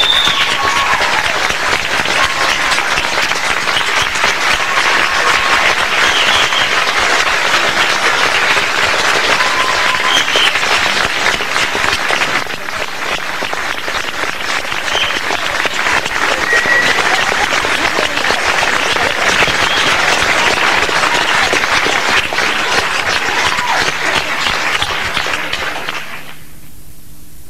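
Audience applauding, with a few shouts rising over the clapping. The applause cuts off about a second before the end, leaving a steady hiss.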